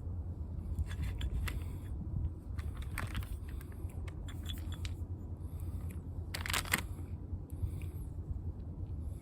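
Light clicks and clinks of small parts being handled, in several short runs with the loudest cluster about six and a half seconds in, over a steady low hum.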